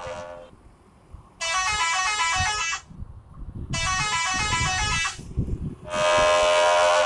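Ship's musical horn playing the same short run of changing notes twice, then sounding one long held chord near the end, over a low background rumble.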